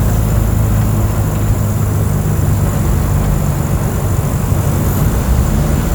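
Mercedes-Benz OF 1722M city bus diesel engine running with a steady low drone over road noise. The engine note shifts slightly about a second in and again near the end.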